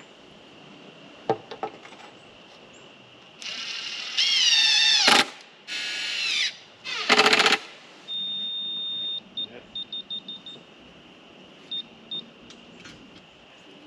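Three loud, warbling squeals with a wavering pitch, the first ending in a downward glide. Then an electronic beeper gives one steady high tone lasting about a second, followed by a run of short beeps at the same pitch.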